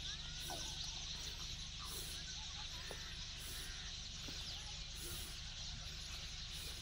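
Outdoor ambience: a steady high hiss over a low rumble, with a faint high pulse about every second and a half and a few faint chirps.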